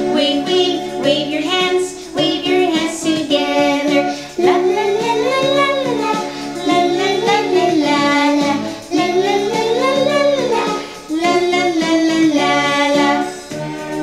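Music: a children's action song, a woman's voice singing a bouncy melody over a backing track. The singing stops near the end and the instrumental continues.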